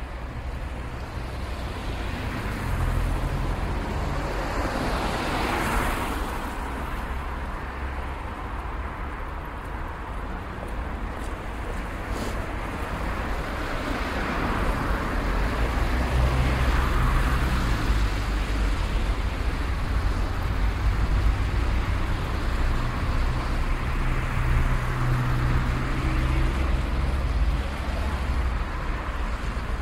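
City street traffic: a continuous rumble of cars and heavier vehicles passing, with one vehicle sweeping past about five seconds in and a deeper engine rumble building from about halfway.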